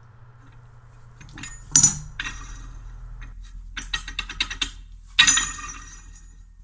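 Steel hand tools and the steel parts of a home-made pallet breaker clinking as they are worked at a bench vise: a few separate metallic clinks, a quick run of light ticks about four seconds in, and a louder clatter about a second later.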